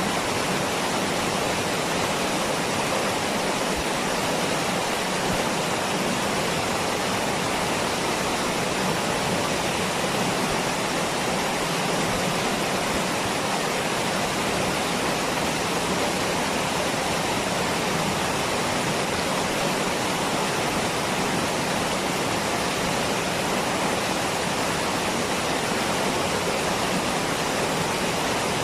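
Waterfall rushing, a steady, even roar of falling water.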